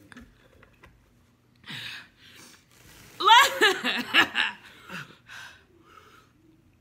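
A woman laughing hard: a few breathy snickers, then a loud run of quick laughs about three seconds in that trails off into softer chuckles.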